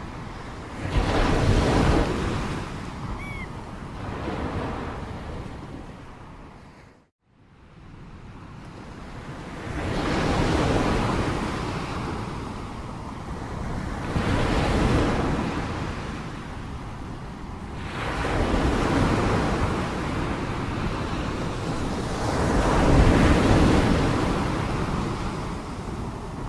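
Sea waves breaking and washing ashore, swelling and fading roughly every four to five seconds, with some wind. The sound drops out completely for a moment about seven seconds in.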